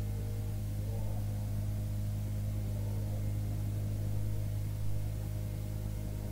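Steady low electrical mains hum in the background of an old recording, with a faint steady ringing of higher tones above it.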